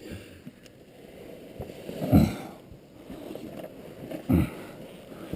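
A hiker wading through a river, water sloshing around the legs, with two louder splashes about two seconds and four seconds in.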